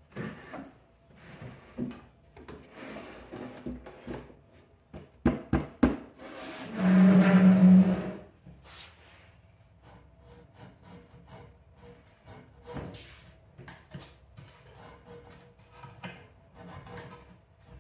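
An old wooden washstand being handled: knocks, taps and rubbing on the wood, a quick run of sharp knocks, then a loud creak lasting about a second.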